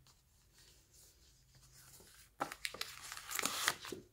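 Paper notebook inserts being handled and leafed through by hand: quiet at first, then a quick run of papery rustles and flicks from a little past halfway, loudest near the end.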